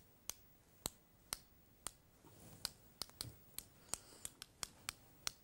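A loaded paintbrush tapped sharply against a second brush held across it, a dozen or so separate clicks, flicking spatters of watercolour paint onto the paper. The taps come about two a second at first, then faster in the second half.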